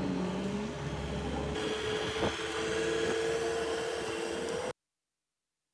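A machine running with a steady whine over a noisy hum, with one sharp click partway through; it cuts off abruptly into silence near the end.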